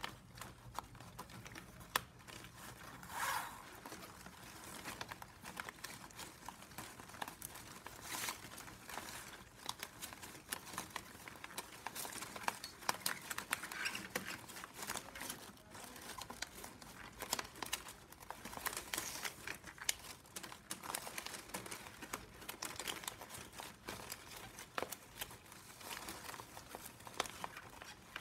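Plastic strapping band strips crinkling and clicking as they are woven over and under one another and pushed into the weave, in irregular sharp clicks, with a louder crackle about three seconds in.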